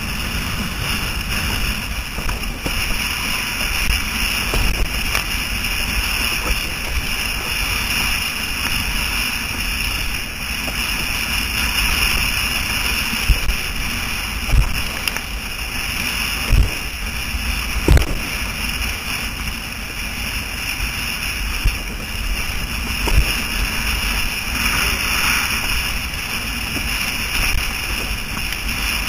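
Wind noise on a helmet-mounted action camera while windsurfing, with the rush of water and several dull thumps in the middle stretch.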